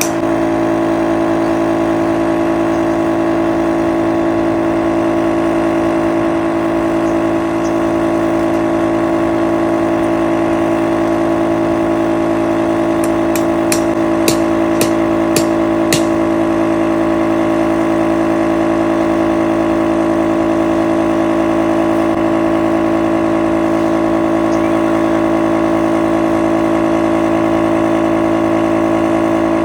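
A motor running steadily at a constant speed, with a cluster of sharp clicks about halfway through.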